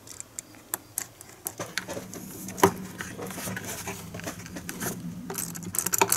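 Hands pushing a rubber vacuum hose onto an intake port fitting, with scattered clicks and scrapes, then a quick run of clicks near the end as a tool tightens the hose clamp.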